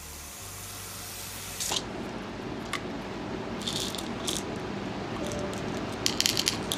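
Water from a kitchen faucet running into a drinking glass, stopping after about a second and a half. Then a plastic prescription pill bottle is handled and opened and pills rattle out into a hand, with sharp clicks and rattles a little past the middle and again near the end.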